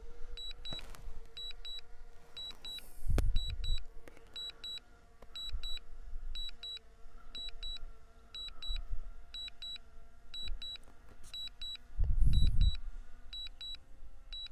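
Drone controller sounding its return-to-home alert, pairs of short high beeps repeating evenly less than a second apart, over the steady hum of the DJI Mini 3 Pro's propellers as the drone hovers down to land. Two low rumbles come about three and twelve seconds in.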